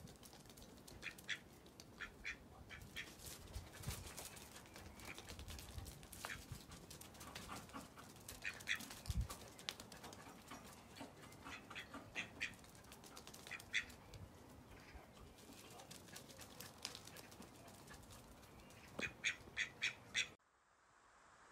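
Duck quacking in short runs of quick calls, several times over, with a run of about five quacks near the end.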